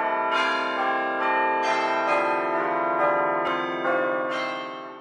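Church bells pealing, several bells struck one after another with their ringing overlapping, fading out near the end.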